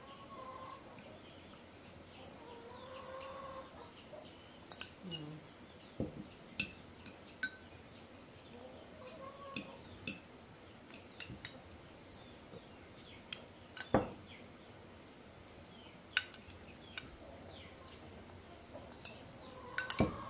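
Chickens clucking a few times, with scattered sharp clicks and taps throughout.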